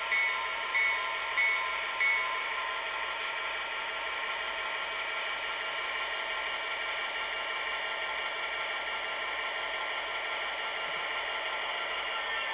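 SoundTraxx Tsunami sound decoder in an HO-scale Athearn Genesis SD70M model locomotive, playing through its small onboard speaker. The locomotive bell rings about four times in the first two seconds and stops, leaving the diesel engine sound running steadily.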